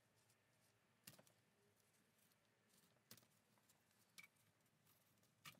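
Near silence: room tone with four faint, short clicks and taps from gloved hands handling parts on an exposed motorcycle engine cylinder head.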